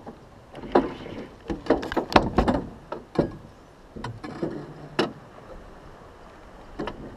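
A quick, irregular run of knocks and slaps against a small boat's hull, about a dozen between one and five seconds in, with a couple more near the end.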